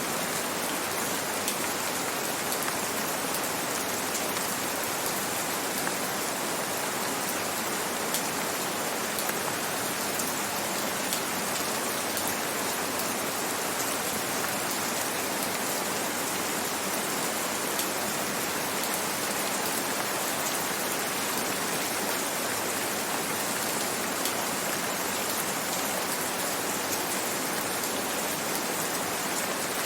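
Steady rain, an even hiss with scattered drop patters.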